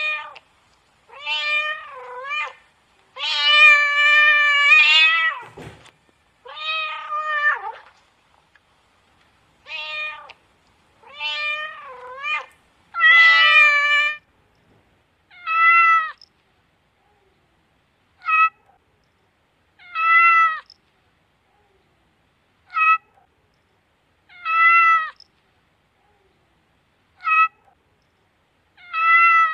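Domestic cat meowing over and over, about fourteen separate meows with silence between. The first half has longer, wavering meows, one held for about two seconds; after that come shorter meows at an even pace, about one every two to two and a half seconds.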